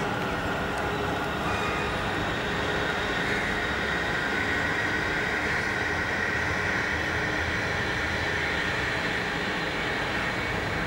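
A steady, even rumbling noise with a hiss, unbroken throughout.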